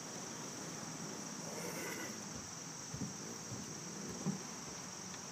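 Crickets trilling steadily in one high continuous note, with a couple of faint soft knocks about three and four seconds in.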